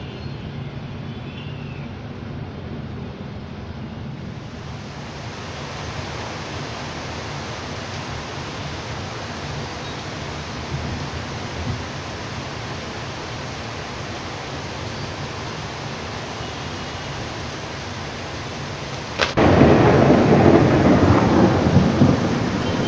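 Heavy rain falling as a steady, even hiss. About nineteen seconds in, a sudden loud thunderclap breaks over it and rumbles on. Before the rain comes in, there are a few seconds of quieter background with a low hum.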